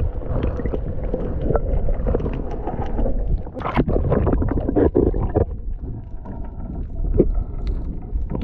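Muffled low rumble of water moving around a submerged camera mounted under a kayak hull, with scattered knocks and crackles.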